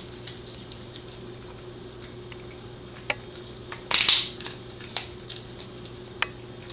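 A Pembroke Welsh Corgi gnawing a dried cow tail wrap chew: wet chewing with scattered sharp clicks of teeth on the chew, and a louder bout of chewing about four seconds in.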